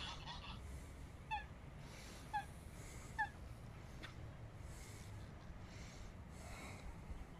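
Eurasian coot giving three short, sharp calls about a second apart, over a steady low rumble.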